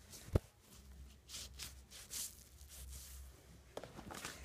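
Faint handling noises from cleaning a leather saddle: a sharp knock about a third of a second in, then several short hissing swishes, with a low steady hum underneath.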